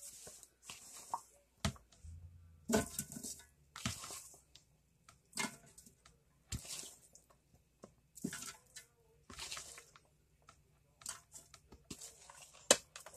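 Cut potatoes and onion coated in olive oil being placed by hand into an air fryer pan: short, irregular handling noises and light knocks, roughly one a second.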